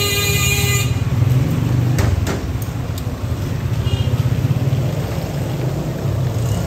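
Busy street noise: a vehicle horn sounding, cutting off just under a second in, over a steady low rumble of engines, with a few sharp clicks about two to three seconds in.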